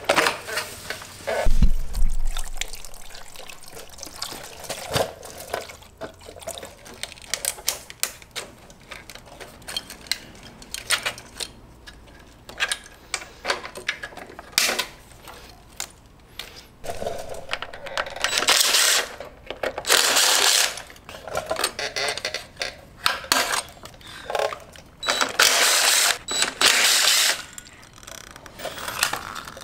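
Clinks and knocks of motorcycle parts and hand tools being handled, with four loud bursts of about a second each in the second half from a DeWalt cordless impact driver running on bolts.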